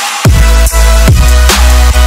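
Background music with a heavy, sustained bass line and sharp, regular drum hits; the bass comes back in about a quarter of a second in after a brief break.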